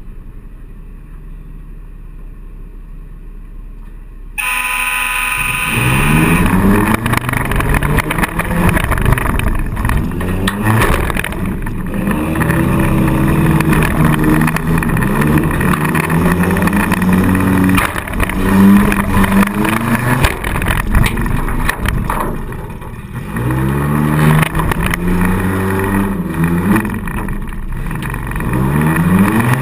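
Four-cylinder demolition derby car's engine heard from inside the car. After about four seconds of quieter running it turns suddenly loud, then revs hard up and down again and again, with knocks and bangs scattered throughout.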